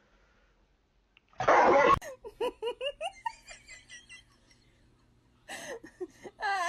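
A sudden loud burst of noise lasting about half a second, then a person laughing in a run of short, quick giggles that fade out; the laughter starts again near the end.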